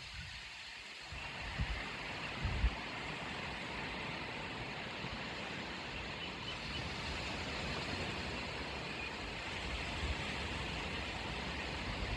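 Steady hiss of outdoor background noise, with a couple of short low thumps about two seconds in.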